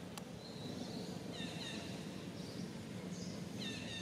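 Outdoor ambience of birds chirping: short, high, downward-gliding chirps in small groups about once a second, over a steady low background rumble.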